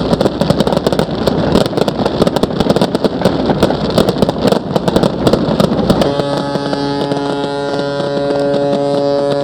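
Fireworks bursting and crackling in a dense, rapid stream of pops. About six seconds in, the crackle drops back and a steady held sound with several pitches takes over.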